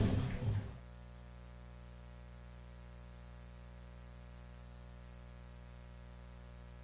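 The last notes of a sung national anthem stop under a second in, leaving a steady electrical hum.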